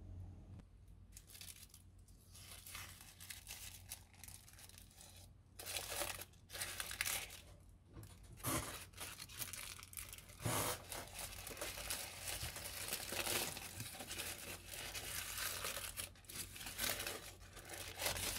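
Tissue paper rustling and crinkling as it is unwrapped from around a small telescope objective lens: faint at first, then irregular bursts of crinkling from about five seconds in.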